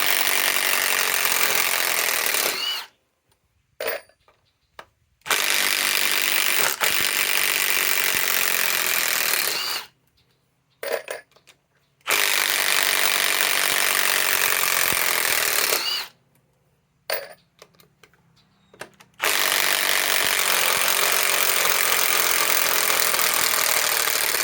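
Milwaukee M18 Fuel 3/8-inch compact impact wrench hammering as it drives long 4-inch TimberLOK screws into wood. There are four runs of about four seconds each, with short trigger blips in the pauses between them.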